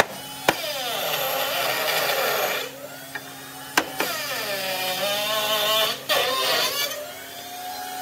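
A motor-driven tool running in stretches of a couple of seconds, its pitch sliding down and back up, with a few sharp knocks between them.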